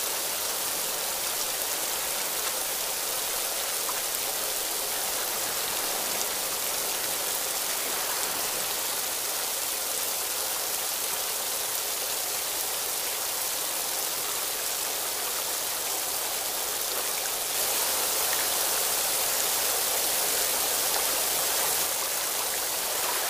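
Thin waterfall falling inside a narrow rock cave and splashing into a pool: a steady hiss of falling and splashing water. It grows a little louder about three quarters of the way through, then eases back shortly before the end.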